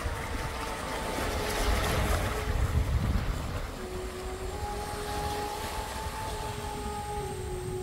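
Wind buffeting the microphone and small waves washing over shoreline rocks, with a faint held tone that shifts pitch in slow steps.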